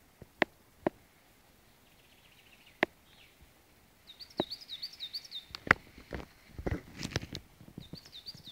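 A small songbird singing a quick series of repeated chirping notes about halfway through, then again near the end. Sharp snaps or knocks are scattered throughout; the loudest comes just after the birdsong starts, and a cluster of knocks with some rumble follows.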